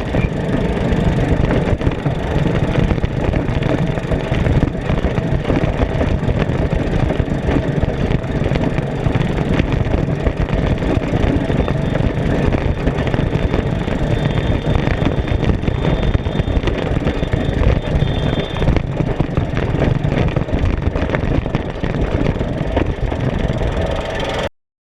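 Off-road race vehicle driving hard: steady engine noise mixed with a constant clatter of small knocks, which cuts off suddenly near the end.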